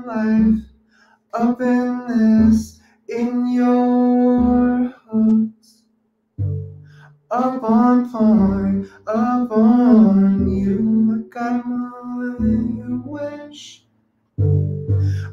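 Live singing through a handheld microphone, processed with auto-tune, in short phrases with held notes and brief gaps, accompanied by a plucked acoustic guitar.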